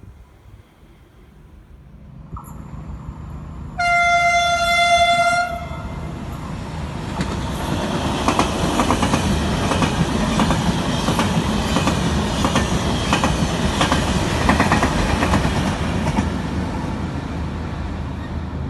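A train approaching and passing close by, sounding its horn once for about a second and a half as it nears. The horn is followed by the loud rumble and rhythmic clickety-clack of the wheels over the rail joints, which fades slowly near the end.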